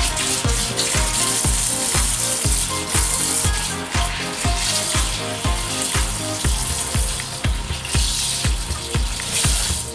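Tap water running over a cutlassfish in a stainless steel sink as it is washed by hand to clear the blood line and black membrane from the body cavity. Background music with a steady beat plays along.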